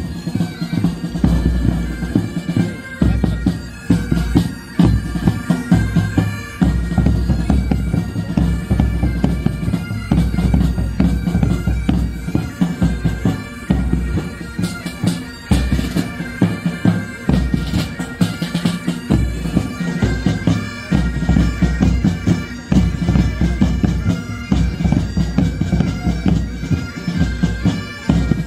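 Military pipe band playing: Great Highland bagpipes sounding their steady drone and melody over a rapid beat of side drums and a bass drum.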